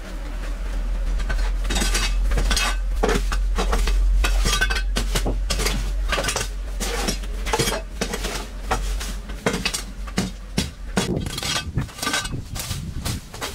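Repeated clinking and clattering of hard objects, many irregular sharp knocks, over a low steady rumble that stops about ten seconds in.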